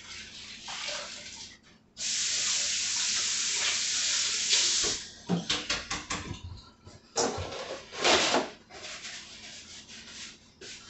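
Kitchen tap running into a stainless steel sink for about three seconds, then shut off abruptly. After it come a few light clicks and two brief rustling bursts of paper towel as wet hands are dried.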